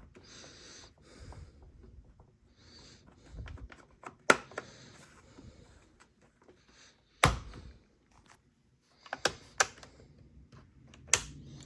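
Scattered plastic clicks and knocks with soft rustling, from handling the air filter cover of a Stihl MS 250 chainsaw. The loudest knock comes about seven seconds in.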